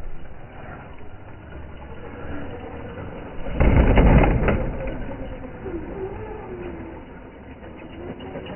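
Traxxas Slash 4x4 RC short-course truck jumping off a ramp and driving across grass. A loud, rough burst of noise comes about three and a half seconds in.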